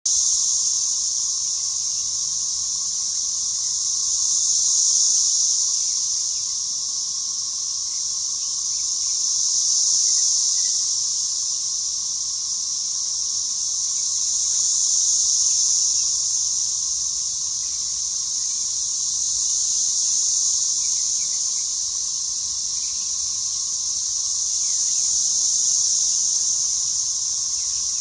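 A dense chorus of cicadas droning at a high pitch, swelling and fading in slow waves about every five seconds.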